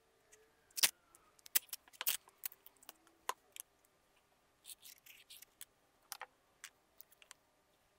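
Sharp knocks and clicks of loose wooden pieces being handled and set on a wooden workbench while masking tape is pulled off its roll and pressed on. A short scratchy stretch near the middle fits a pencil marking the wood.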